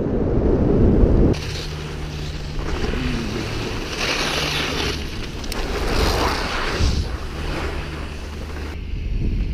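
Wind buffeting an action camera's microphone while skiing downhill, a heavy low rumble for about the first second, with the hiss of skis sliding over packed snow. The sound changes abruptly about a second in and again near the end.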